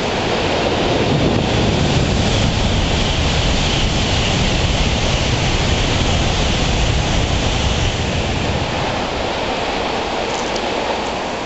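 N700-series Shinkansen passing through a station at speed: a loud rush of air and rumble that swells about a second in and eases off after about eight seconds, over the steady hiss of heavy rain.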